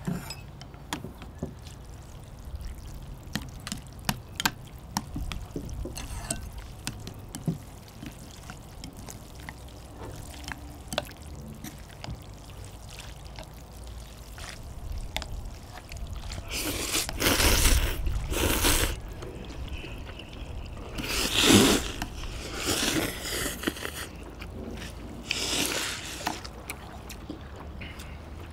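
Chopsticks and spoons clicking lightly against bowls, then from about halfway through a series of loud slurps of thin wheat noodles in broth, each about a second long.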